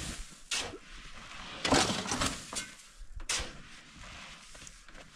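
Long-handled shovel scraping through fine gravel in a pickup truck bed and dragging it off the tailgate, the gravel pouring onto the ground. Three strokes come about a second and a half apart, the middle one the loudest and longest.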